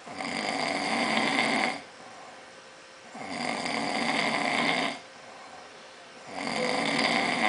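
A man snoring heavily in deep sleep: three long snores, each about a second and a half, coming about every three seconds.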